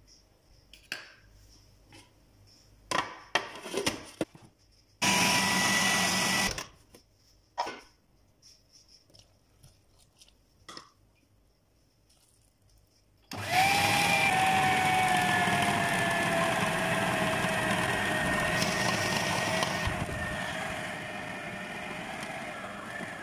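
Kenwood food processor motor running as it mixes flour, oil and hot water into tortilla dough: a short run of about a second and a half about five seconds in, then switched on again about thirteen seconds in and running steadily, its whine slowly falling in pitch. A few light clicks and knocks come before it.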